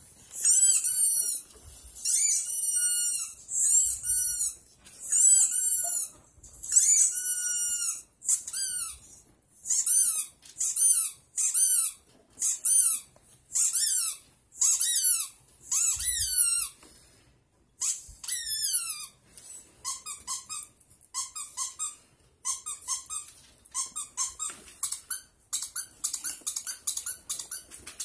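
Dog whining excitedly: a string of high-pitched, falling whines about once a second, turning into shorter, quicker squeaky whimpers from about two-thirds of the way in.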